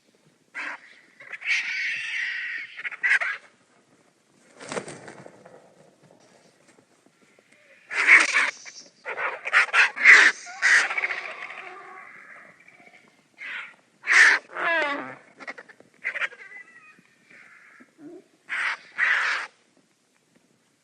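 Vultures squabbling over food: harsh, raspy calls in irregular bursts, several close together, with short pauses between them.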